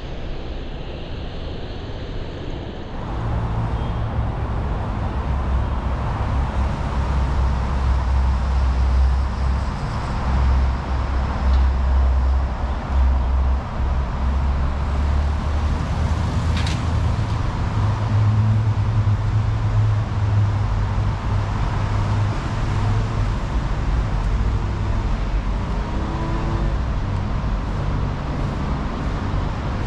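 Steady road traffic noise with a heavy low rumble. It sets in about three seconds in, after a quieter stretch.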